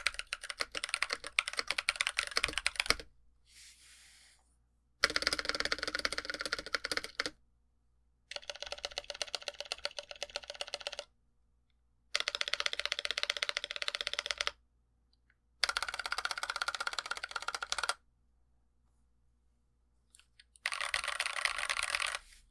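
Typing on a NovelKeys NK65 aluminum mechanical keyboard with plate foam and stock Blue Velvet tactile switches, which have a thocky-ish sound and a soft bottom-out. The keystrokes come in six fast runs of two to three seconds each, with short pauses between them.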